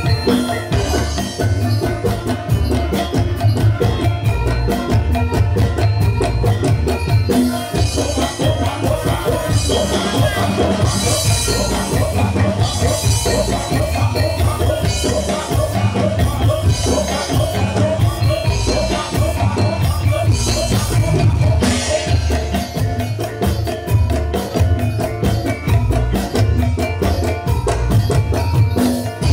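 Live Javanese warok dance music from a folk percussion ensemble: drums keep a fast, dense beat over steady pitched tones, loud and unbroken.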